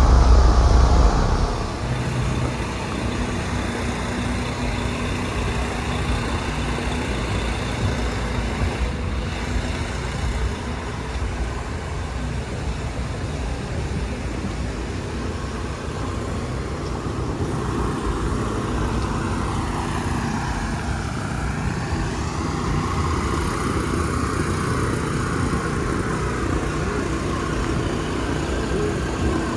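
Car engines running at a street gathering, a steady outdoor traffic noise with a low hum, and a loud low rumble in the first second or so.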